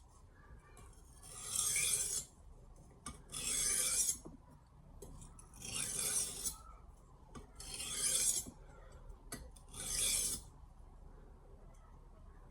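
Steel knife blade drawn edge-leading across the coarse side of a Sharpal diamond sharpening plate: five separate gritty, hissing strokes, about one every two seconds.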